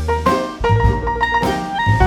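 Instrumental jazz music with drums, bass and melodic instruments playing a swinging beat.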